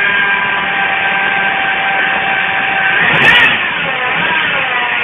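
Citroën C3 engine idling with a steady high whine that sounds like an electric motor, coming from the worn idler rollers on the accessory belt. A brief wavering sound rises over it about three seconds in.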